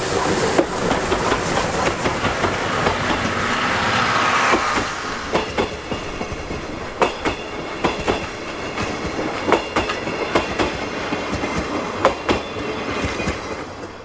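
Steam locomotive C58 363, a C58-class 2-6-2, passing close by. Its passenger coaches then roll past, their wheels clicking sharply over the rail joints from about five seconds in.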